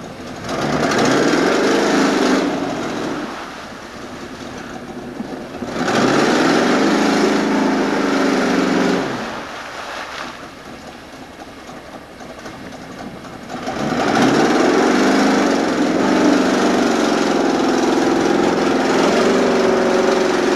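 Lifted Chevy pickup's engine revving hard in three long surges, the pitch climbing at the start of each, the last held for several seconds, as the truck's tyres spin through deep mud and water without four-wheel drive, throwing up splashing mud.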